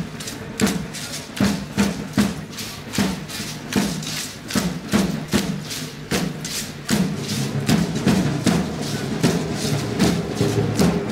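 Music driven by a steady percussion beat, about two or three sharp strikes a second, over a low sustained pitched layer.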